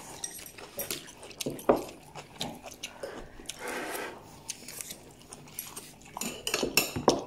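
People eating a meal: chewing, with scattered clicks of cutlery against dishes and a few brief murmured voices.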